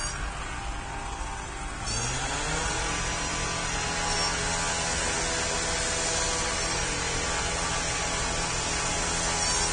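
Double-stack intermodal freight train rolling past: a steady rumble and rail-and-wheel noise. About two seconds in it grows louder, and a droning, engine-like hum rises briefly in pitch and then holds steady over it.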